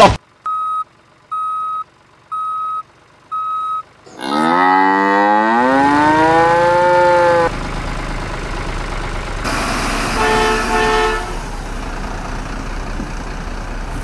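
Four short beeps about a second apart, then a cow's long moo that rises in pitch, followed by a steady rumble like a vehicle engine running, with a brief double tone about ten seconds in.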